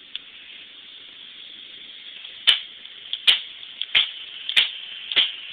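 Crosman C11 CO2 pistol firing in quick succession: five sharp cracks about two-thirds of a second apart, starting about halfway through, with fainter clicks between them.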